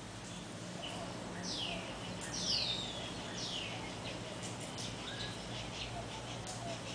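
Morning birdsong: one bird gives three loud calls, each sweeping down in pitch, about a second apart, among scattered short chirps from other birds. A faint steady low hum runs underneath.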